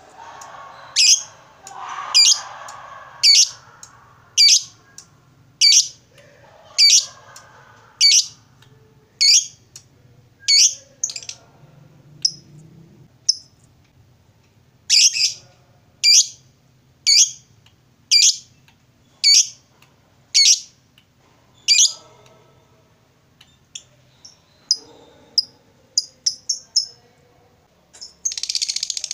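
Fischer's lovebird giving sharp, piercing single calls about once a second, the challenge calls a lovebird gives to a rival, with a short break in the middle. Toward the end the calls turn fainter and quicker, then break into a fast, continuous chatter (the lovebird's 'ngekek').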